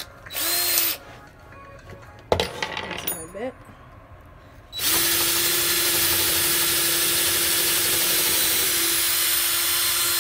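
Cordless drill with a 5/16-inch bit boring a test hole in a softwood block. A short spin comes about half a second in, then some handling knocks, and from about halfway a long steady whine as the bit cuts through the wood.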